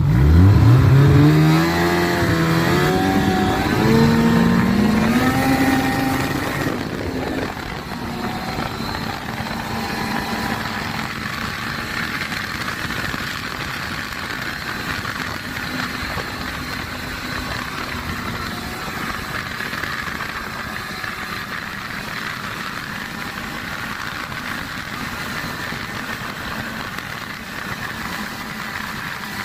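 Ski-Doo snowmobile engine heard from the rider's seat, accelerating with its pitch climbing over the first six seconds, then settling into a steady run at trail speed.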